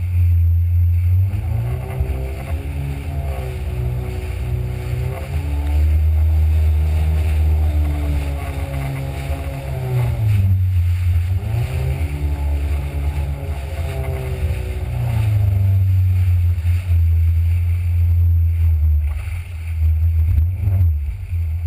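Jet ski engine running at speed, its pitch rising and falling several times as the throttle changes, over a heavy low rumble.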